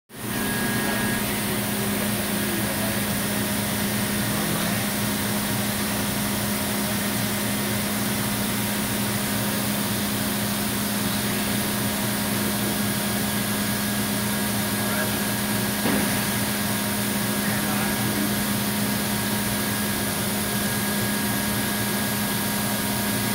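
Large multi-spindle CNC router running, a steady mechanical hum with a constant high whine and even hiss. There is one brief knock about two-thirds of the way through.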